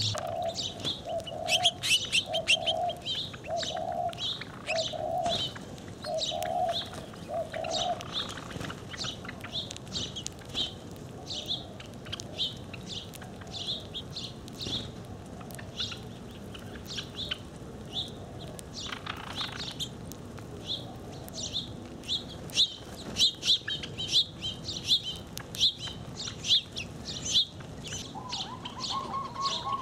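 A mixed flock of feeding birds: small birds chirp busily and without pause, while a dove coos a run of about seven even notes over the first eight seconds and coos again near the end.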